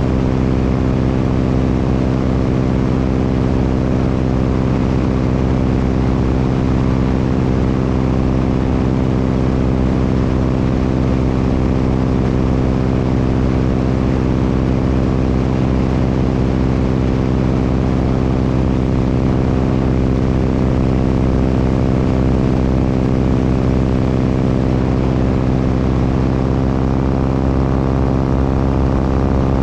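Propeller airplane engine droning steadily in flight, with a constant low, many-toned hum over a rush of air noise.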